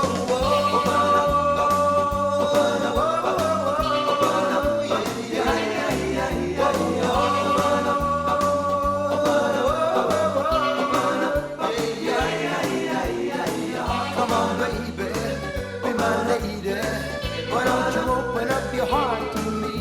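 Rock and roll song playing an instrumental passage near its end: long held melody notes over a steady beat and bass line.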